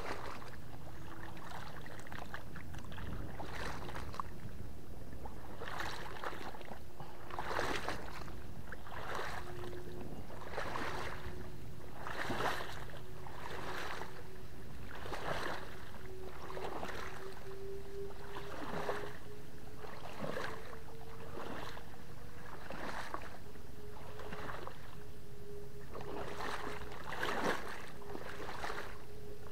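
Paddle strokes in water, about one a second, as a small boat is paddled along. A faint steady hum runs underneath, rising slowly in pitch.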